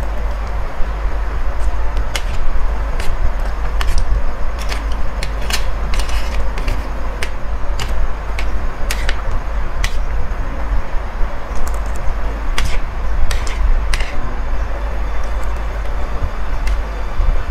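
Close-miked chewing of chowmein noodles, with irregular sharp clicks and a metal spoon scraping and tapping a ceramic plate, over a steady low hum.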